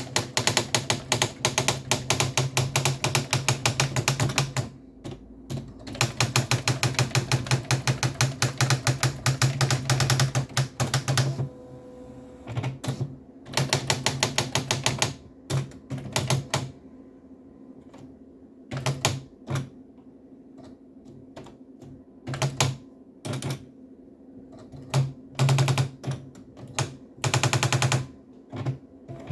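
Sharp PA-6000 electronic typewriter printing: fast, even runs of strikes broken by short pauses, then slower scattered strikes with one more quick run near the end, over a steady hum.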